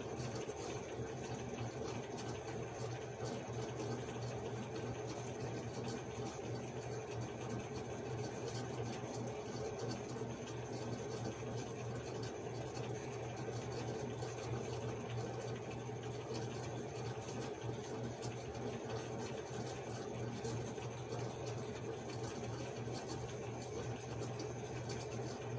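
Steady low hum of background room noise, unchanging throughout, with no distinct clicks or knocks.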